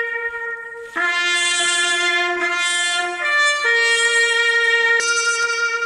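Bugle call: a brass horn sounding long held notes, dropping in pitch about a second in and rising again past the middle.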